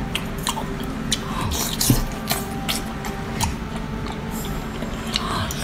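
Wet mouth sounds of eating a sauce-coated octopus tentacle: chewing, sucking and slurping, with many short, sharp lip smacks.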